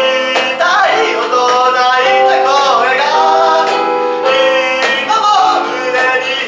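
Live acoustic band music: strummed acoustic guitar and keyboard chords over a cajon beat, with a male voice singing.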